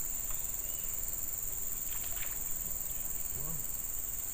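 Steady high-pitched insect chorus shrilling without a break, with a faint short vocal sound about three and a half seconds in.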